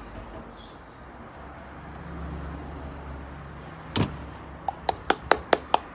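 Glitter container being shaken and tapped: a sharp knock about four seconds in, then a quick run of sharp taps, about four or five a second, as star glitter is knocked out of it. A low rumble rises and fades underneath.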